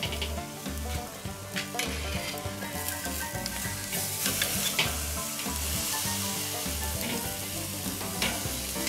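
Flank steak sizzling on the grate of a charcoal kettle grill, a steady hiss of fat and juices hitting the hot coals, with a few sharp clicks of metal tongs on the grate as the steak is turned.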